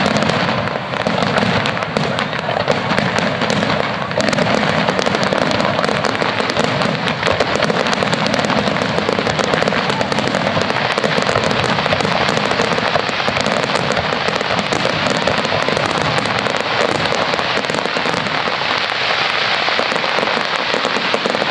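Dense barrage of aerial fireworks: many shells bursting at once, a continuous mass of crackling and bangs with no let-up.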